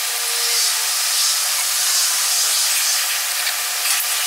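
Steady hiss with a few faint light ticks near the end.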